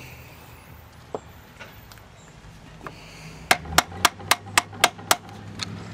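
A small hammer tapping a screwdriver, about seven sharp metallic taps at roughly four a second starting about three and a half seconds in, driving out the plastic bushing at the outboard's tiller arm pivot.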